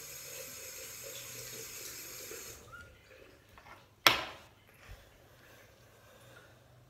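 Bathroom tap running into a sink as hands are washed, shut off about two and a half seconds in. About four seconds in there is a single sharp knock, the loudest sound, followed by a fainter knock a moment later.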